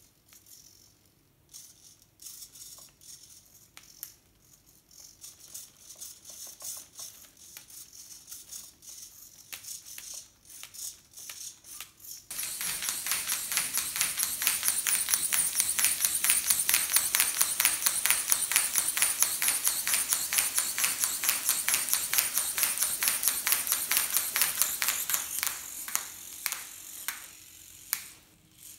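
Servo-driven 3D-printed ornithopter working its wings, with sparse clicks and rustles from the servo and plastic linkage at first. About twelve seconds in this turns suddenly into a fast, dense rattle of plastic parts and flapping wing sheeting. The rattle runs for some fifteen seconds and thins out near the end.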